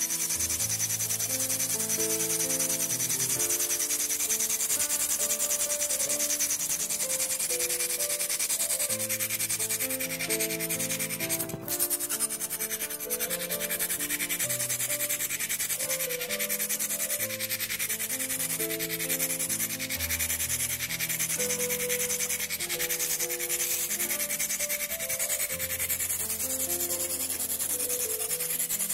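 Steady hiss of an ultrasonic liposuction probe running in water, emulsifying lumps of fat into a milky liquid, with background music of slow, sustained notes underneath. The hiss dips briefly about a third of the way in.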